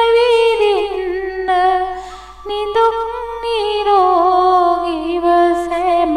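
A woman's solo voice singing a Sinhala Buddhist devotional verse (kavi) in long, wavering held notes. There is a short break for breath about two seconds in, and the melody drifts downward toward the end.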